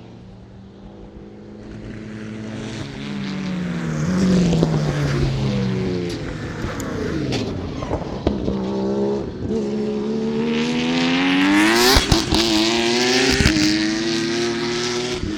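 Competition Ford AU Falcon at full throttle, its engine note climbing through the revs and dropping back at each upshift. It grows louder as it approaches and is loudest about twelve seconds in as it passes close by, then carries on in a higher gear.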